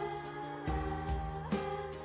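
Background music: a gentle instrumental tune of held notes over a bass line, with a new note struck about every second.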